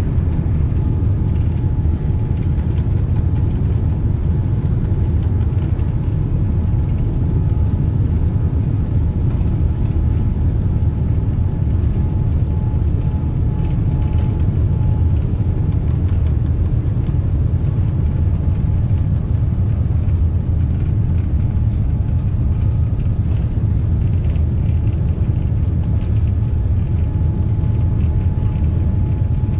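Steady low rumble of a Boeing 787-9 airliner's cabin on final approach: engine and airflow noise heard from a passenger seat, with a faint steady whine above it.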